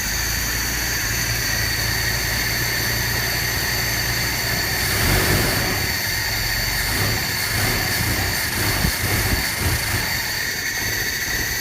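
1976 Chevy LUV's four-cylinder engine idling roughly. About five seconds in it is revved, then runs unevenly and sputters for several seconds before settling back to idle: it bogs down and tries to die under acceleration.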